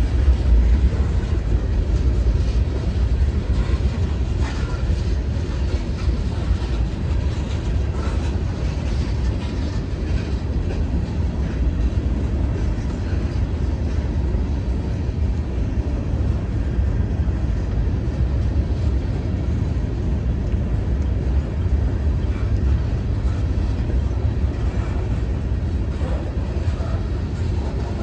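A train rolling by: a steady low rumble of wheels and engines on the track, a little louder in the first second or two.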